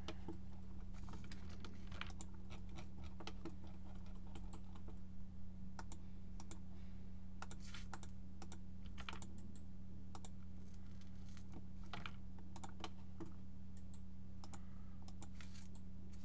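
Irregular clicks of a computer keyboard and mouse, some in quick runs, over a steady low electrical hum.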